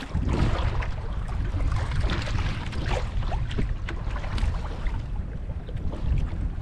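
Wind buffeting the microphone and choppy water slapping against a small outrigger canoe's hull, a steady rough rumble with scattered light clicks and knocks.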